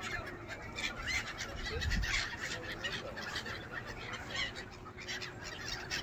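A large flock of gulls calling, many short cries overlapping throughout. A brief low rumble about two seconds in.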